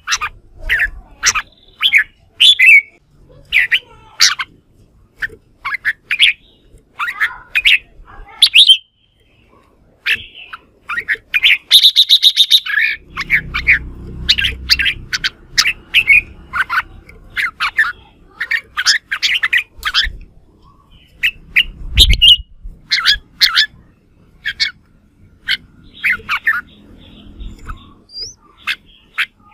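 Red-whiskered bulbul giving its loud, aggressive competition song: quick runs of short whistled phrases with brief pauses, and a fast buzzy chatter about twelve seconds in. A single knock about twenty-two seconds in.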